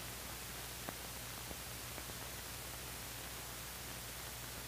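Steady hiss with a low hum from an old film soundtrack, with a couple of faint ticks in the first two seconds.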